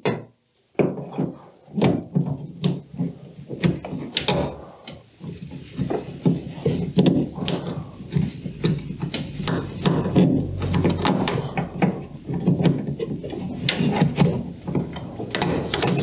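Combination pliers squeezing spring hose clamps and sliding them along the rubber hoses on a Siemens washing machine's drain-pump housing: many scattered clicks and knocks of metal on plastic, mixed with rubbing.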